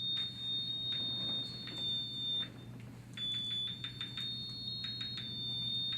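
A steady high-pitched electronic tone at two close pitches, breaking off for a moment about halfway through, with scattered light clicks over a low electrical hum.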